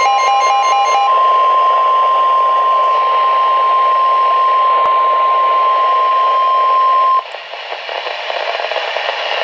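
The end of a burst of digital EAS/SAME header data tones, then the NOAA Weather Radio 1050 Hz warning alarm tone held steady for about six seconds, announcing a severe thunderstorm warning. The tone cuts off about seven seconds in, leaving only radio static and hiss.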